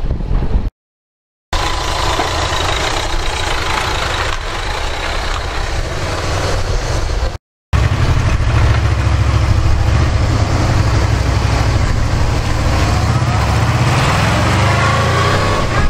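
A steady rushing noise, then from about halfway a motorcycle engine running at low revs. Near the end its pitch rises as it pulls away.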